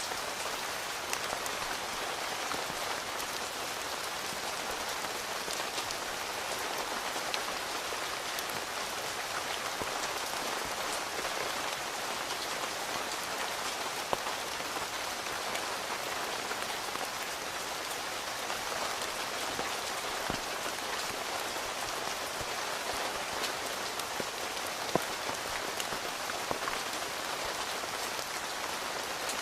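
Steady rain falling on a tent, with a constant hiss and scattered single drops tapping on the fabric. One drop near the end is louder than the rest.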